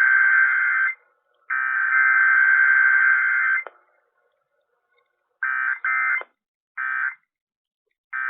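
Emergency Alert System digital data tones (SAME bursts) broadcast over AM radio, a harsh, raspy warble. The first part holds the end of one long header burst of about 2 s and then a second one. After a pause of about a second and a half come four short end-of-message bursts.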